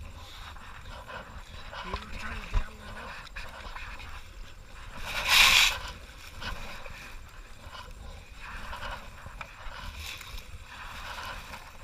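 Kayak paddle strokes in the river water, with one loud splash about halfway through and a single sharp knock a couple of seconds in.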